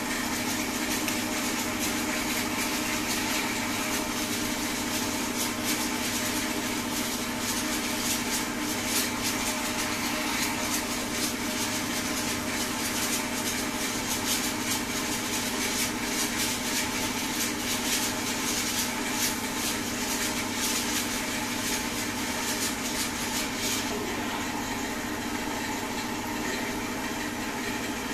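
Car-wash pressure-washer pump motor running with a steady hum. A hiss of spray hitting the car comes over it and drops away about 24 seconds in.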